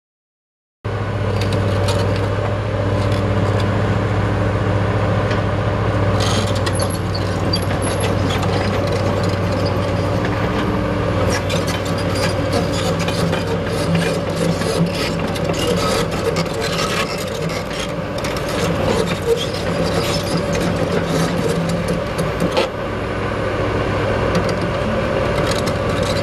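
Six-cylinder diesel engine of a Case 9030B excavator running steadily. From about ten seconds in there are frequent metallic clanks and clicks from the machine.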